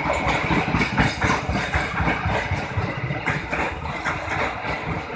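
Passenger coaches of a diesel-hauled local train rolling slowly past at close range, their steel wheels clattering irregularly over the rail joints and switch points of the turnout, over a steady engine rumble.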